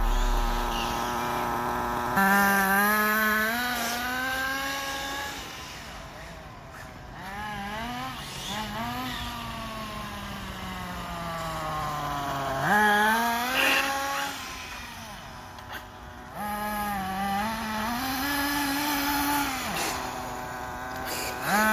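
Radio-controlled race cars' motors running hard. The pitch climbs and falls again and again as the cars speed up and back off, with long falling glides between the surges.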